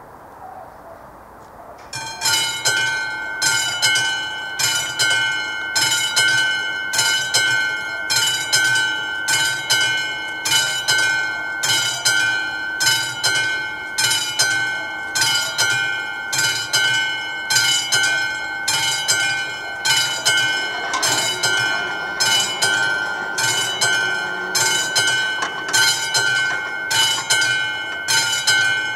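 Level-crossing warning bell of an AŽD 71 crossing signal, a classic struck bell, starts about two seconds in and keeps striking at a fast, even rate. It is the crossing's warning that a train is approaching, and it sounds while the barriers come down.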